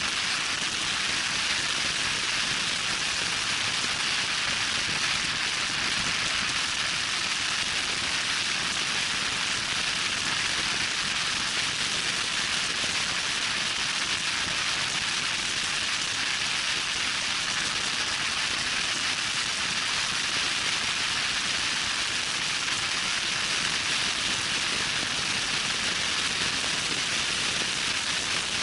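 Loud, steady rushing hiss of wind noise on the microphone of a vehicle driving at high speed on a dirt trail, with no engine note standing out.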